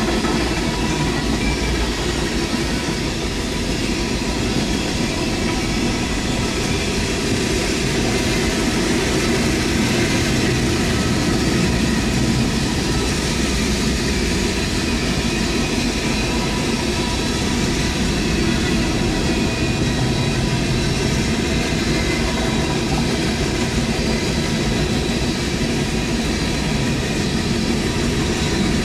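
Freight train of tank cars and boxcars rolling past: a steady, unbroken noise of steel wheels running on the rails.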